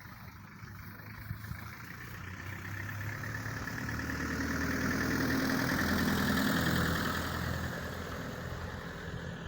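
A car driving past: engine and tyre noise grow louder, peak about halfway through, then fade as it moves away.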